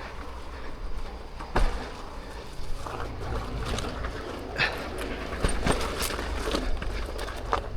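Electric unicycle riding over a rocky dirt trail: a steady low rumble of tyre on ground, broken by scattered sharp knocks and clicks as the wheel and pedals hit rocks.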